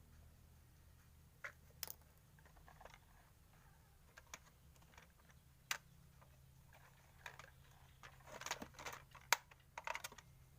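Hands handling a plastic toy: scattered small clicks and taps, coming faster in the last few seconds.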